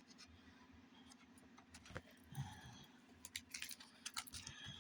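Faint paper rustling and light ticks of a comic book being handled and its pages flipped, starting after about two seconds and getting busier toward the end.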